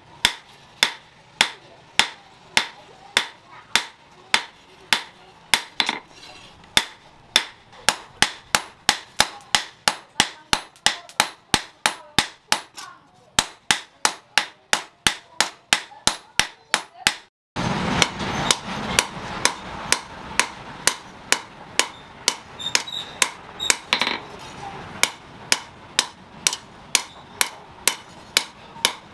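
Hand hammer forging a red-hot steel sword blade, made from a shock absorber piston rod, on a steel post anvil: sharp ringing blows at about two to three a second. More than halfway through there is an abrupt cut, and the blows go on over a louder steady background noise.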